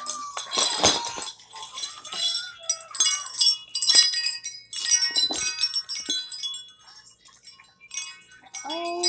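Golden metal-tube wind chime jingling as it is handled and lifted, its tubes striking one another in irregular clusters of bright ringing notes. The strikes are busiest over the first several seconds and thin out toward the end.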